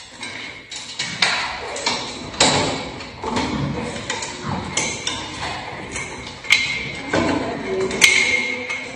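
Metal stair safety gate rattling and clanking under a climbing cat and a dog jumping up against it: a run of irregular knocks and taps, with the two loudest near the end ringing briefly.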